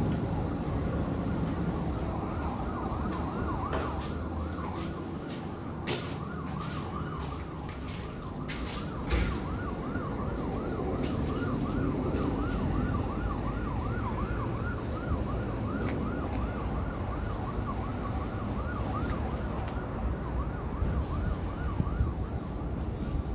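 Emergency vehicle siren with a fast rising-and-falling wail, about three cycles a second, over a steady low rumble of city traffic, with a few sharp knocks.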